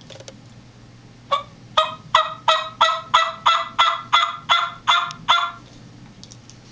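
Series of about a dozen hen turkey yelps blown on a latex diaphragm mouth call, evenly paced at about three a second. The call sounds nice and crisp, the sign of dry latex that has not yet soaked up moisture.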